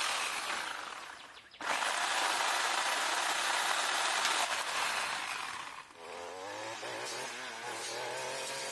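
Small electric chainsaw cutting brush. It winds down and stops about a second and a half in, starts again abruptly and runs until about six seconds in. After that a Stihl FS 56 brushcutter's two-stroke engine runs with a wavering pitch.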